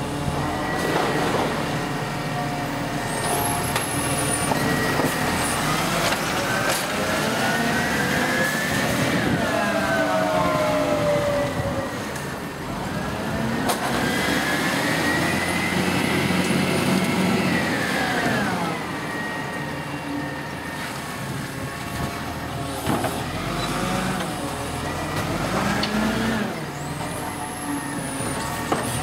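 Volvo FL side-loader garbage truck's diesel engine revving up and falling back again and again as the truck works along the street, with a few short sharp hisses from the air brakes.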